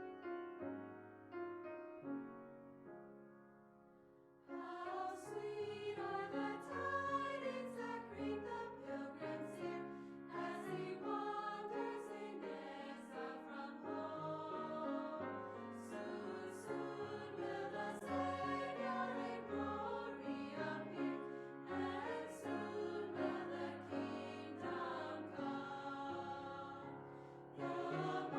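Music: a piano passage fading away, then a choir singing from about four seconds in.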